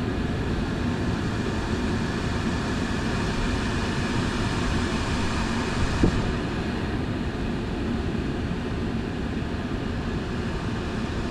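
Portable air conditioner running at its top fan setting: a steady rush of air with a low hum, read at 75 to 80 dB close up. There is a single click about six seconds in, after which the upper hiss eases slightly.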